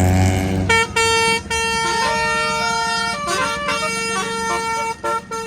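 Tour bus's Basuri telolet horn playing a multi-note tune, its tones stepping up and down in pitch, starting under a second in, over the low running of the bus's engine.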